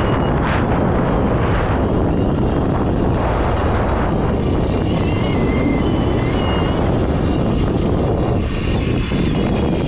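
Fat-tire e-bike riding in loose sand: a steady loud rush of wind and tyre noise, with the high whine of the Bafang BBS-HD mid-drive motor coming in about five seconds in and again near the end.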